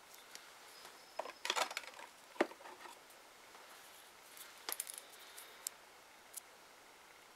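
Small glass Cuccio Colour nail polish bottles clinking and knocking as they are handled and swapped: two short clusters of sharp clicks and taps, then a couple of single clicks.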